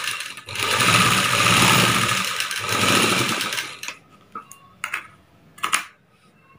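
Rama sewing machine stitching at speed, with a short break about half a second in; it stops near the four-second mark. Then come a few short, sharp snips of scissors cutting the thread.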